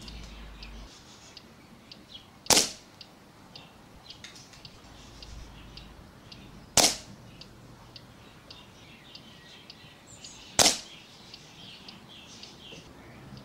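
Air Arms S400 Classic pre-charged pneumatic air rifle fired three times, each shot a sharp crack about four seconds apart.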